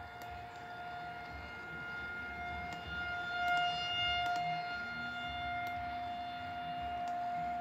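Outdoor tornado warning siren sounding one steady tone during a scheduled siren test, growing a little louder a few seconds in.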